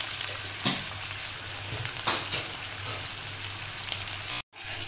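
Water-based tempering of oil, mustard seeds, curry leaves and green chillies boiling and sizzling in a nonstick kadhai as the added salt and sugar dissolve, with two sharp knocks about a second and a half apart. The sound drops out for a moment near the end.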